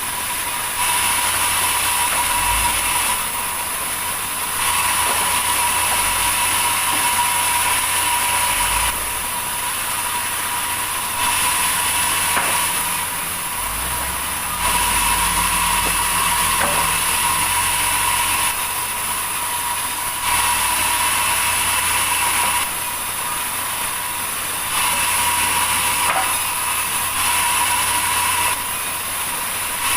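Sawmill machinery running steadily, switching every few seconds between a louder stretch with a steady high tone and hiss and a quieter stretch.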